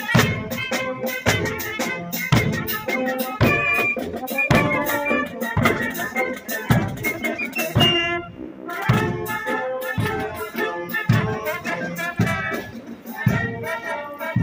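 Marching band playing a march: wind instruments carry the tune over a steady, even drum beat.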